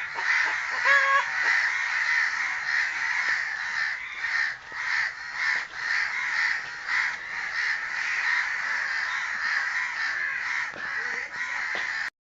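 Crows cawing over and over in a dense, harsh chorus, with a brief higher pitched call about a second in; the sound cuts off abruptly just before the end.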